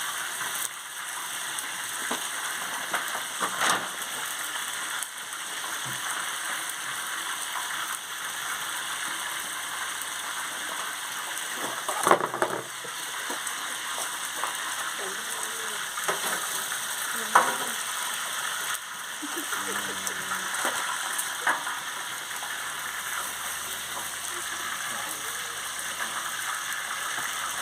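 Mojarras frying in hot oil: a steady sizzle, with a few short sharp knocks about 4, 12 and 17 seconds in.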